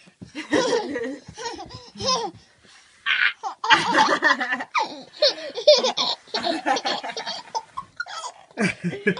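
A baby girl laughing in repeated bursts of giggles, with a short pause about two and a half seconds in.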